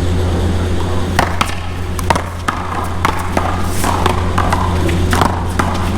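A one-wall paddleball rally: a string of sharp, irregular smacks from paddles striking the ball and the ball hitting the wall, roughly half a second apart, starting about a second in. Underneath is a steady low rumble.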